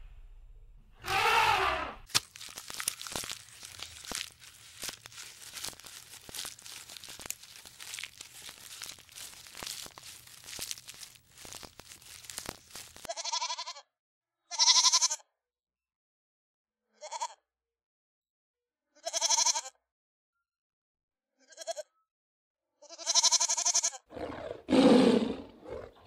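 Young goats bleating: about six short, separate high calls over roughly ten seconds in the second half. Before them comes a single elephant call about a second in, followed by some ten seconds of crackling and crunching. Near the end a lower call follows, the start of a tiger's growl.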